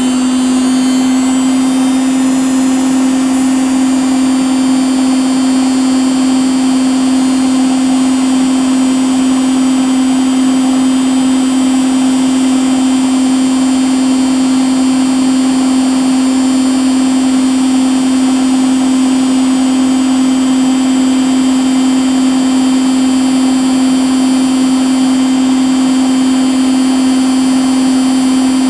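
Household appliance motor running with a steady, loud hum at one constant pitch, along with a fainter high whine.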